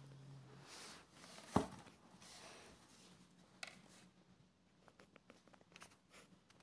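Faint handling noise of a small brush being felt and turned over inside a cardboard box: soft rustling and scraping, one sharp knock about a second and a half in, and a few lighter clicks later on.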